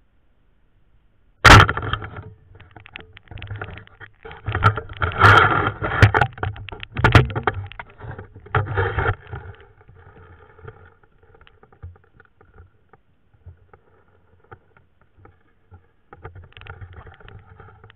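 Muffled underwater sound of a spearfisher moving through shallow ditch water with a speargun: a sharp loud crack about a second and a half in, then several seconds of irregular knocking and sloshing of water, quieter after about nine seconds.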